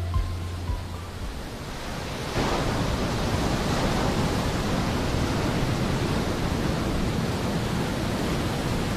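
Surf washing on a beach: a steady rushing noise that begins suddenly about two seconds in.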